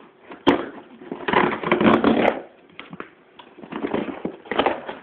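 Cardboard shipping box being torn open by hand, its top ripping in three rough bursts: a short one about half a second in, then two longer ones of about a second each.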